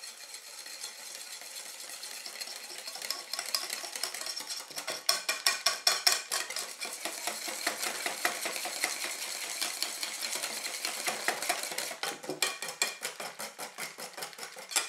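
Wire balloon whisk beating a liquid egg, almond and cream batter in a glass dish. A soft wet swishing turns, about four or five seconds in, into fast rapid clicking of the wires against the glass, which slows to sparser ticks near the end.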